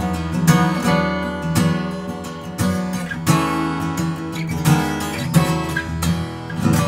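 Gibson J-45 Standard slope-shoulder dreadnought acoustic guitar, with a Sitka spruce top and mahogany back and sides, being strummed. Full chords ring out with a strum roughly every half second to a second.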